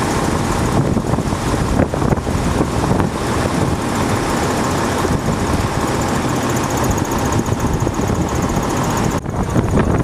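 A motor vehicle's engine running steadily, a dense low rumble with no words over it.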